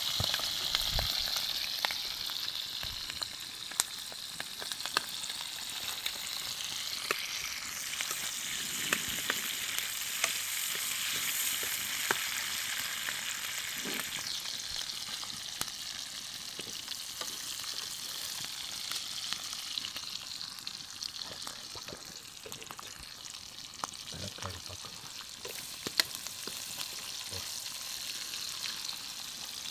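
Sliced onions and green chillies sizzling in hot oil in an iron kadai over a wood fire: a steady high hiss with scattered clicks and pops.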